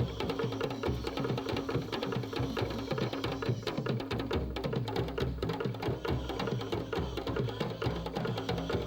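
Balinese bamboo percussion ensemble playing: many rapid, dense struck-bamboo notes over deep, resonant low tones, in a steady driving rhythm.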